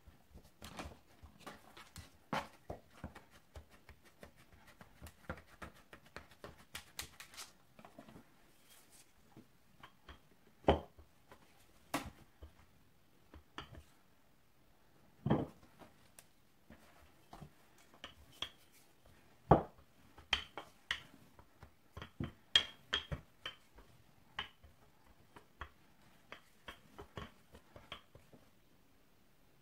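Hands and a wooden rolling pin working bread dough on a wooden cutting board: scattered soft taps and knocks, with a few louder thumps now and then.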